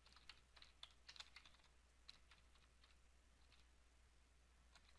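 Faint typing on a computer keyboard: a quick run of keystrokes in the first two seconds, a few more about three and a half seconds in, then a lull before typing picks up again near the end.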